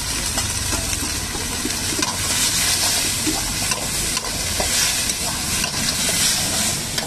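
Chopped vegetables sizzling as they stir-fry in a hot wok, with a steady hiss. A metal ladle scrapes and clicks against the pan as it stirs.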